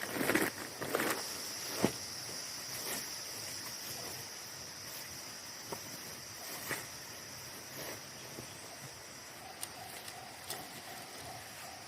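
Forest insects keep up a steady high-pitched drone, broken by rustling in the first two seconds and a few scattered crackles and clicks. Near the end a lower, pulsing animal call joins in.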